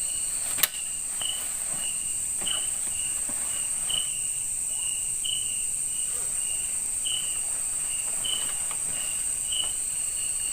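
Night insect chorus: a steady high-pitched drone with a short chirp repeating at an even pace, and one sharp click about half a second in.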